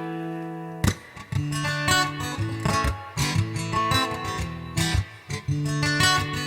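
Acoustic guitar in an instrumental break: a held chord rings out, then a sharp strike a little under a second in starts a steady run of picked and strummed chords.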